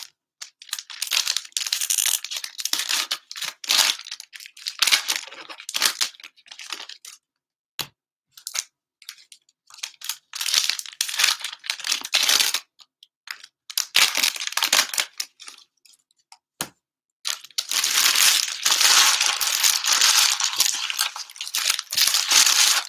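Plastic cello-pack wrappers of trading cards being torn open and crinkled by hand, in several spells of a few seconds each, the longest near the end.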